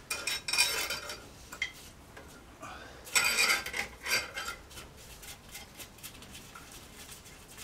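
Metal clamping hardware clinking and rattling as nuts on threaded rods are snugged up around a stack of freshly epoxied timber laminations, just to light tension. It comes in a few short bouts of sharp clinks, the busiest a little past the middle.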